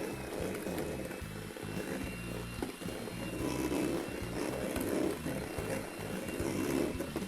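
Electric mixer running steadily, whipping egg whites and sugar into meringue until the sugar dissolves.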